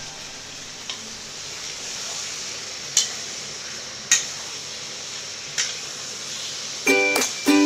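Chicken and potatoes sizzling in a metal kadai as a spoon stirs them, with four sharp clinks of the spoon against the pan. Background music starts near the end and is louder than the frying.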